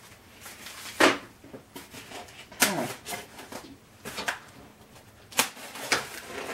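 Irregular knocks, clicks and scrapes of cardboard and foam packaging being handled as taped-down parts of a foam RC jet are worked free of their box.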